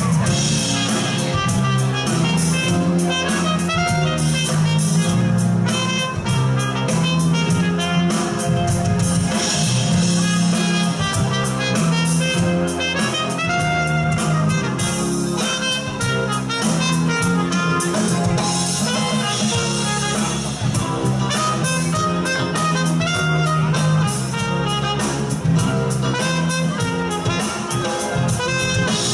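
Live band playing an instrumental passage: trumpet lead over drum kit, electric guitar, bass guitar and keyboard.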